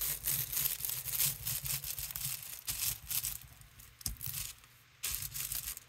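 Rubber brayer rolled in repeated strokes over thin tissue paper laid on an inked gel printing plate, the tissue crackling and rustling under it. The strokes ease off for about a second past the middle, then resume.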